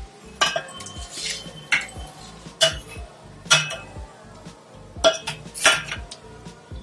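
A kitchen utensil knocking and scraping against a stainless steel pot as fried dough pieces are turned in sugar syrup, with about six sharp metallic clinks at uneven intervals.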